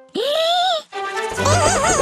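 A short cartoon creature vocalisation that glides up in pitch and wavers for under a second, then background music, with a wavering, warbling tone coming in about halfway through.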